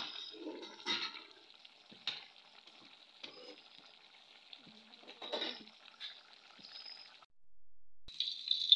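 Fish curry sizzling faintly in a pan, with a few knocks of a spoon against the pan. Near the end the sound cuts out for a moment, then fish pieces start frying in oil with a loud, steady sizzle.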